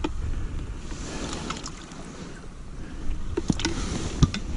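Wind rumbling on the microphone, with a few small clicks and taps about three and a half to four seconds in.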